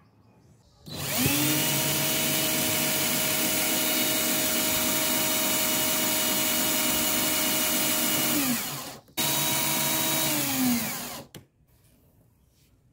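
Small electric motor of a homemade mini drill press running up to speed and drilling into a small wood block, with a steady whine; it winds down with falling pitch, runs again for about two seconds, and winds down once more.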